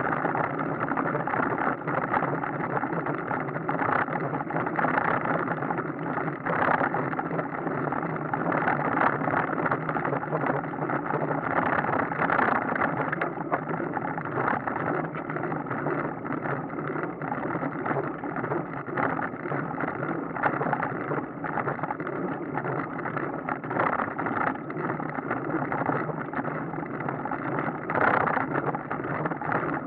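Steady rushing wind and road noise from a bicycle ride, swelling and easing a little now and then.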